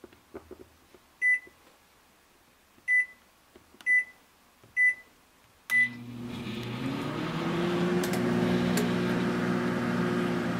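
Microwave oven keypad beeping five times as the cook time is keyed in and start is pressed, after a few light key clicks. On the last beep, about six seconds in, the oven starts and runs with a steady hum, one tone of which rises slightly as it starts up.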